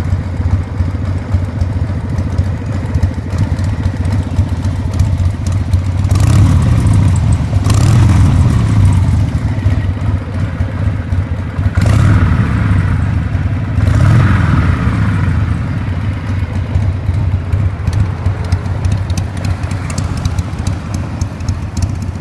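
1992 Harley-Davidson XLH1200 Sportster's 1200 cc V-twin idling with a lumpy beat through its factory optional silencers. The throttle is blipped twice about a quarter of the way in and twice more just past halfway, the revs rising and falling back to idle each time.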